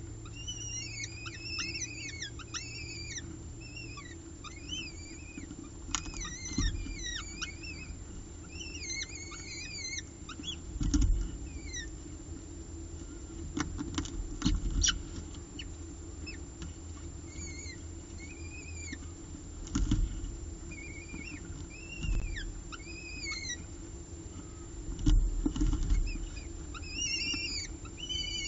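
Peregrine falcon eyases cheeping in repeated clusters of short, high, arching chirps, the begging calls of chicks being fed. A few dull thumps from the nest box and a steady low hum lie beneath.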